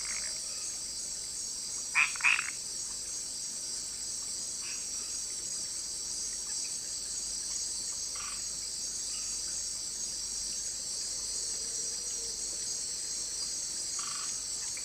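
Frogs calling in short, sparse notes, the loudest a quick double call about two seconds in, over a steady high-pitched insect chorus.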